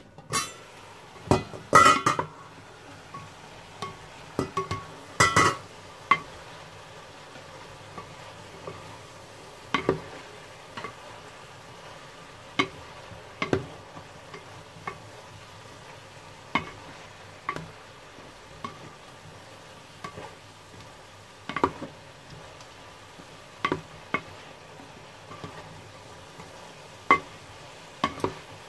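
Vegetables stirred with a spatula in a stainless steel pan over a steady sizzle, the spatula knocking against the pan every second or two. The pan's metal lid comes off with a few loud clanks in the first few seconds.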